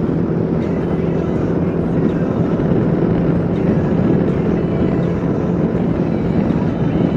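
Kawasaki KLR 650's single-cylinder engine running steadily at cruising speed, mixed with the rush of wind and road noise while riding.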